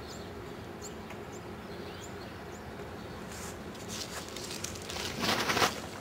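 Faint, short high bird chirps about every half second during the first half. Then leaves and twigs rustling against the handheld camera as it is pushed into a small tree's foliage, growing louder and loudest shortly before the end.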